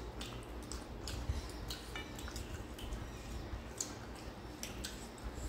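Rice and mutton curry being eaten by hand: fingers squishing and mixing rice on plates, with chewing and scattered short wet clicks.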